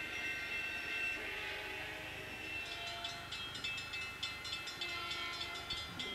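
Train sounds: a held, horn-like tone in the first half, then a quick, even clicking of about four clicks a second, like wheels passing over rail joints.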